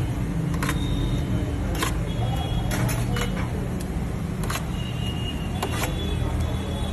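A metal spoon clinking against a steel tray several times, with a short ring after some of the strikes, as mayonnaise is scooped onto pitas. A steady low rumble of traffic or machinery runs underneath.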